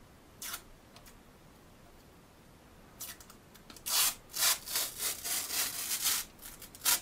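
Protective plastic film being peeled off the plastic case of a D-Link AC5300 router. There is one short crackle, then from about three seconds in a quick run of loud rasping peels.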